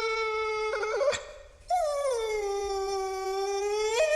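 A dog howling in long drawn-out howls. One howl ends about a second in, and a second howl is held for about two seconds, dipping in pitch and then holding steady. Near the end the pitch jumps up and wavers.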